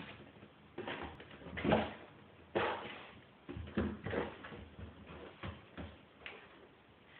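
Cardboard box scraping and rustling in irregular bursts as a kitten swats and scrambles at its edge and a hand moves the flaps, the loudest scrape a little under two seconds in.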